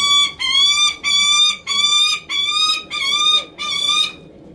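Lanner falcon giving a rapid run of about seven evenly spaced, even-pitched calls, then stopping about four seconds in. It is the bird's soliciting call to a keeper it is fond of.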